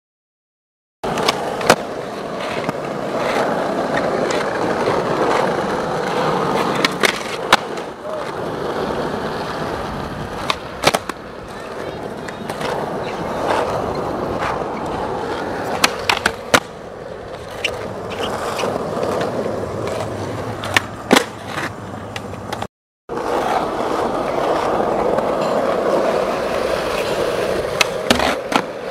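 Skateboard wheels rolling over rough asphalt in a steady grinding rumble, broken again and again by sharp wooden clacks of tail pops and landings on ledges and curbs. The sound starts about a second in and drops out briefly just before the 23-second mark.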